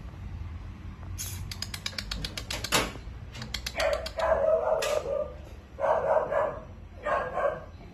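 A dog barking in three short bouts in the second half, after a rapid rattle of sharp clicks starting about a second in.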